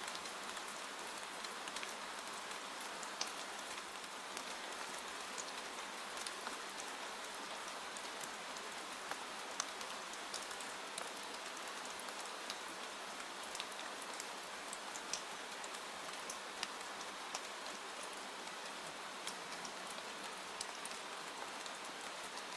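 Steady rain pattering on a window, a constant hiss dotted with the sharp ticks of single drops.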